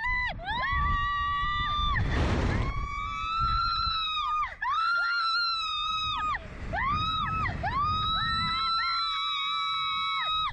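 Two young women screaming on a SlingShot reverse-bungee ride: a string of long, high screams, each about a second long and dropping in pitch as it breaks off. Wind rushes over the microphone underneath.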